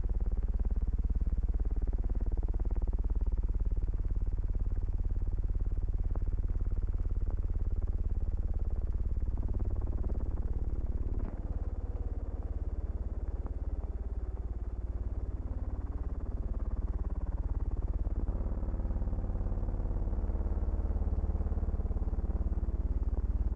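A steady low hum with faint wavering, warbling tones and a few clicks: noise from the transfer of a silent 1916 film, not sound recorded in the scene.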